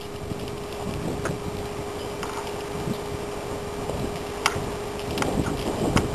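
Steady wind and handling noise on a camera microphone with a faint constant hum, and a few scattered soft clicks and thuds from a horse's hooves moving over the dirt of a round pen.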